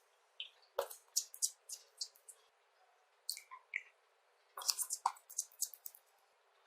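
Slime being squished and poked by hand, giving sticky, wet clicks and pops in two irregular clusters, one about a second in and another past the middle.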